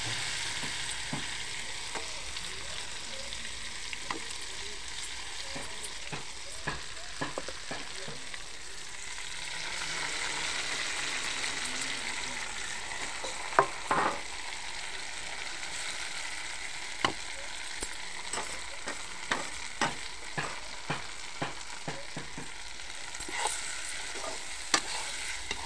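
Nimona paste of ground green peas sizzling as it fries in hot oil in a metal wok, with a steady hiss. A perforated metal spatula stirs it, clinking and scraping against the pan now and then, with one sharper clink about halfway through.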